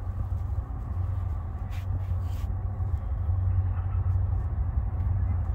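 Low, steady rumble of an approaching freight train's diesel locomotives, slowly growing louder.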